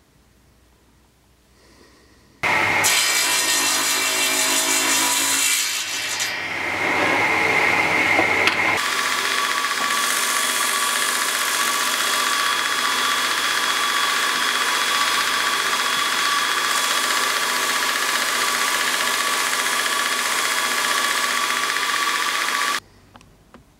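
Belt grinder running over a surface-grinder table, its abrasive belt sanding a block of grenadilla (African blackwood) flat: a loud steady hiss with a constant motor whine. It starts suddenly about two seconds in and stops about a second before the end.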